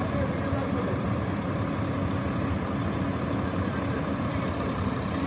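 Heavy diesel truck engine running steadily, with an even low hum and no change in revs.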